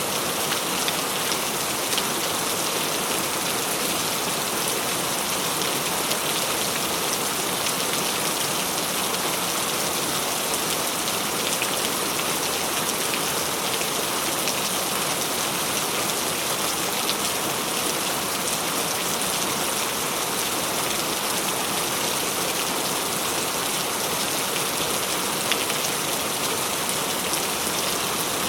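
Steady heavy rain falling and pattering on surfaces, an even hiss with scattered drop ticks.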